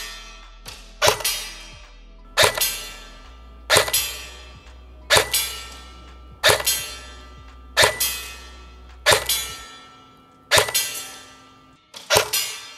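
CYMA AKS-74 electric airsoft gun firing single shots at an even pace, about one every 1.3 seconds (about nine in all), each a sharp crack that rings out for about a second. Background music runs underneath.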